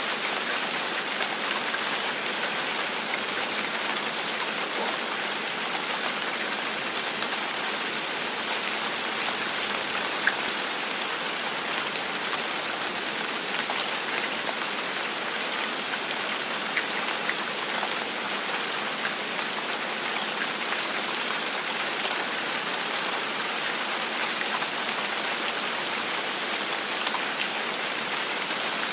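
Steady gentle rain falling, an even hiss with scattered individual drop patters.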